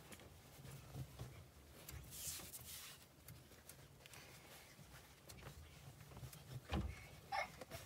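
Soft rustling of a cotton T-shirt as it is handled and folded on a fur rug, with a brief louder brushing about two seconds in. Near the end there is a soft thump, then a short high-pitched sound.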